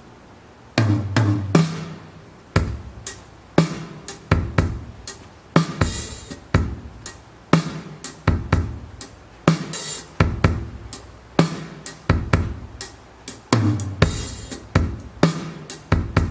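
Drum kit playing a steady beat of kick and snare, starting about a second in, with tom fills and cymbal crashes every few seconds.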